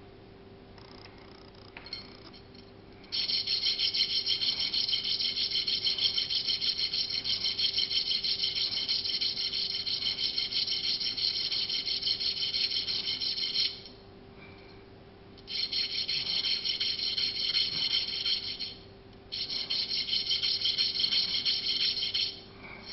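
A small metal part rubbed rapidly back and forth along a hand file held flat on the table, filing metal away to time an A2 birdcage flash hider. The fast rasping scrape starts about three seconds in and runs about ten seconds, then comes twice more in shorter runs of a few seconds each, with brief pauses between.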